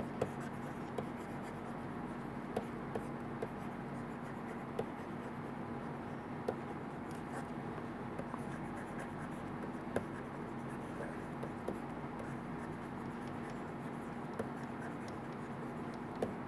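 Stylus writing on a tablet screen: faint, irregular small taps and scratches over a steady low hum.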